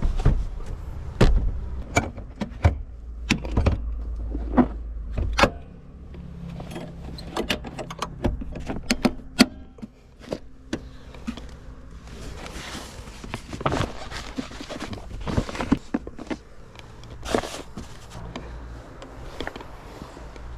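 A run of irregular clicks, knocks and clatters from things being handled around a small car, over a low hum that stops abruptly about five seconds in.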